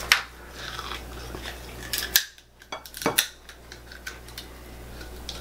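Kitchen scissors snipping and cracking through a boiled lobster's shell: a few sharp snaps spread through, the loudest right at the start.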